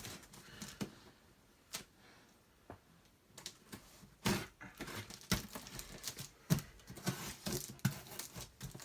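Cardboard shipping box being opened by hand: packing tape tearing and cardboard and packing material crinkling, with scattered knocks and clicks. Sparse at first, busier from about four seconds in.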